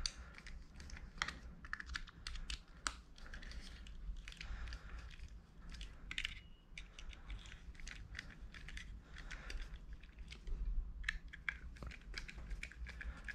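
Light, irregular clicks and ticks of a precision screwdriver turning a small screw into a plastic phone mount, with the mount and metal bits handled against a tabletop; a closer run of clicks comes near the end.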